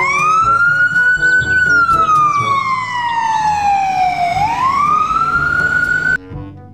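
Ambulance siren wailing: the pitch sweeps up, falls slowly for about three seconds, climbs again and cuts off suddenly near the end. Background music plays underneath.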